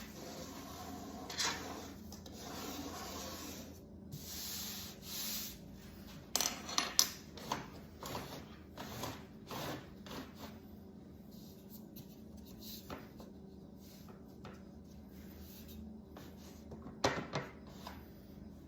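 Hands working parts at a table saw: a few seconds of rubbing and scraping, then a string of light clicks and knocks, with another short clatter near the end.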